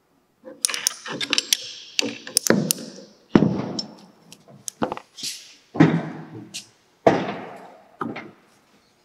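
Metal gear puller and a multi-groove V-belt pulley being worked off an electric motor's shaft and handled. A quick run of metallic clicks and clanks, then several heavier clanks with a short ring.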